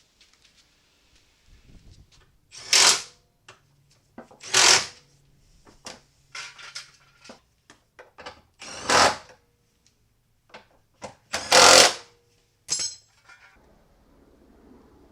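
Handheld power tool run in four short bursts, each about half a second long, with smaller clicks and knocks in between.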